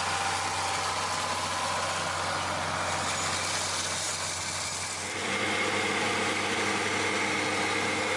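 Tractor engine running steadily, its tone changing about five seconds in.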